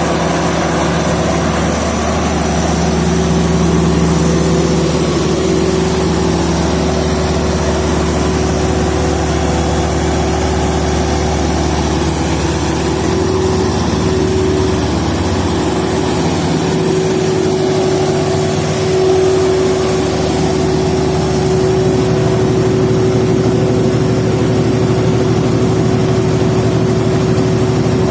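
A 600 kVA diesel generator set running steadily, a continuous engine drone with a constant higher hum over it. The low part of the drone changes tone about halfway through.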